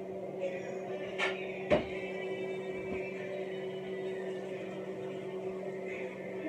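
Steady humming drone in the room, with two sharp clicks about half a second apart a little over a second in.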